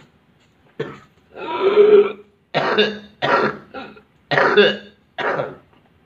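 A person coughing repeatedly: about seven short, sudden coughs, with one longer, drawn-out one about a second and a half in.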